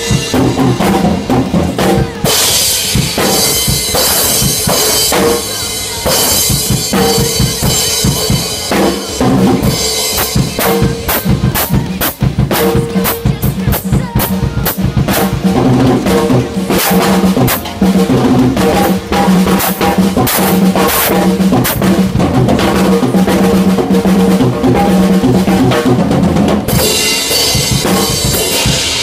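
Drum kit played along to a recorded song, with bass drum kicks, snare hits and cymbals. The strokes come thick and fast for several seconds through the middle.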